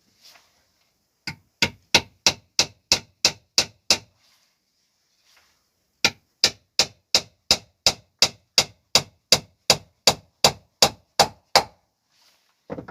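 Hammer striking in two runs of steady, evenly spaced blows, about three a second. A short run of about nine blows is followed by a pause, then a longer run of about sixteen.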